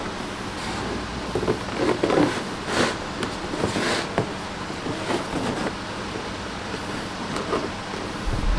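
Cardboard model-kit box handled by hand, turned over and set down, giving several short scraping and rubbing sounds over a steady background hum.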